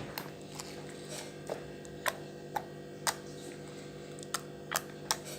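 Hands playing with homemade peel-off face mask slime, making sharp little clicks and pops about nine times at uneven intervals over a steady low hum. The slime is runny and sticky, a failed batch.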